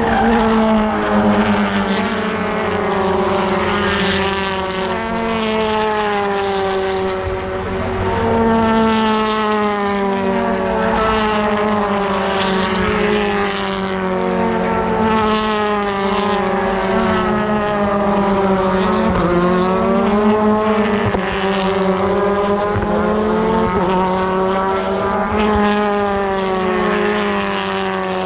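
British Touring Car Championship cars racing past, their turbocharged 2.0-litre four-cylinder engines rising and falling in pitch as one car after another goes by, several overlapping at once, over a steady low hum.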